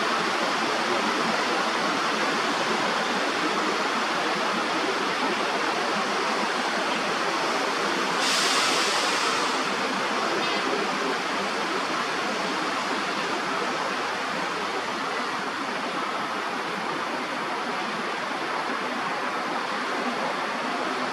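Steady rushing background noise, with a louder, higher hiss that swells about eight seconds in and fades over a couple of seconds.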